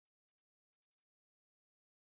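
Near silence, broken by a few very faint, short clicks in the first second.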